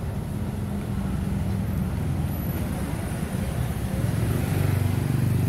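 Street traffic: motor vehicle engines running close by, a low steady hum that grows louder about four seconds in as a vehicle comes nearer.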